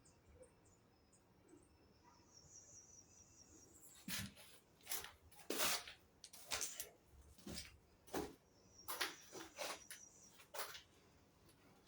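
Light knocks and clicks, a dozen or so in an irregular run, starting about four seconds in.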